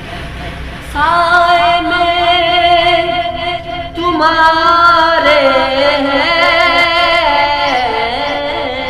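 A man singing a naat in a high voice, drawing out long held notes with wavering ornaments; a new phrase comes in strongly about a second in.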